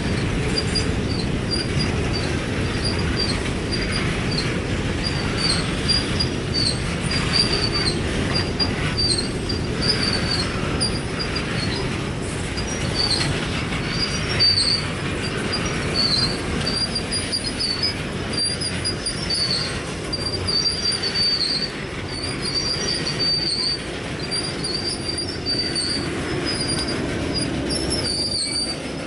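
Freight train cars rolling past, with a steady rumble of steel wheels on rail. Short, high-pitched wheel squeals keep coming through it.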